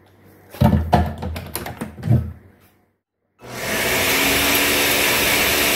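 A few knocks and clatters, then about three and a half seconds in a countertop blender starts and runs steadily, blending boiled tomatoes and árbol chiles in water into a red salsa.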